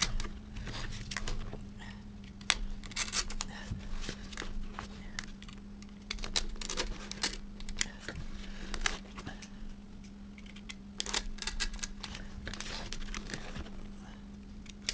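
Knife cutting out the fabric spider of a Fi BTL 15 subwoofer, irregular clicks, snips and crinkles as the blade works around and the cone is bent back. A steady low hum runs under it.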